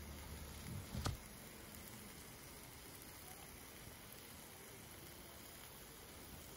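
Faint, steady sizzling of meat frying in a cast-iron skillet, with a single light knock about a second in.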